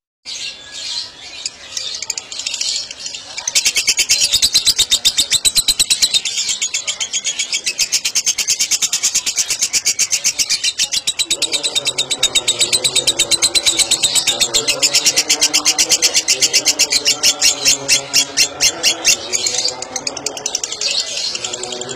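A bird singing a long, fast run of high chirps repeated about ten times a second. A lower, steadier pitched sound joins about eleven seconds in.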